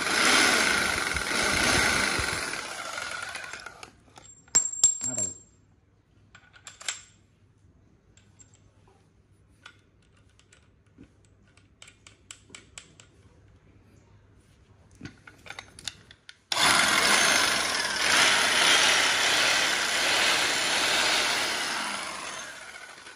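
Hitachi 100 V electric demolition hammer with a hex-shank chisel, running and hammering with the bit in the air, with no work under the bit. It runs for about four seconds and stops. After a quiet stretch of small clicks and taps from handling, it starts again abruptly and runs for about six seconds before winding down.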